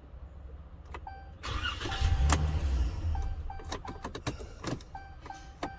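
A truck's dash warning chime beeps repeatedly. About a second and a half in, the starter cranks the engine and it runs for about two seconds. The key clicks in the ignition. This is a truck with an intermittent no-crank fault caused by the key and immobiliser (SKIM) module, and this time it starts. The chime means the vehicle's data bus network is up.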